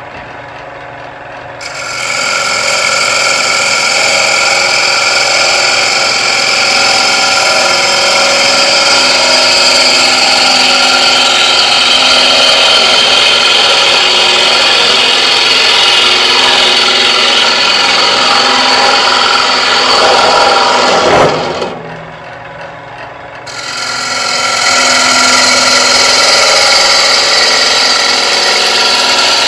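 3/8" bowl gouge cutting into a spinning wooden bowl blank on a lathe, hollowing out the interior: a steady shearing hiss over the hum of the turning lathe. The cut starts about two seconds in, stops for about two seconds roughly three-quarters of the way through as the gouge comes off the wood, then starts again.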